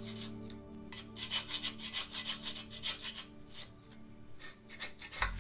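Metal scraper blade scraping caked grease and dirt off a steel loader frame, in quick repeated strokes, several a second.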